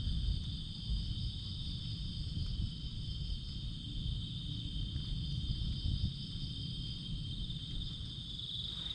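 Night insects buzzing steadily in a high, unbroken drone, over a constant low rumble.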